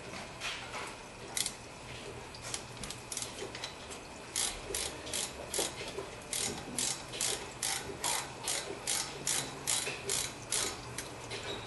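Hand ratchet wrench clicking as it runs in a front brake caliper bolt. A few scattered clicks come first, then from about four seconds in a steady run of about two to three clicks a second.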